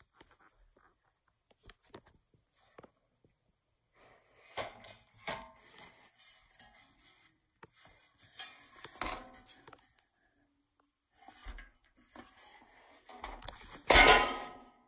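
Irregular rustling, rubbing and light clicks of objects and the recording phone being handled, with a louder clatter about fourteen seconds in.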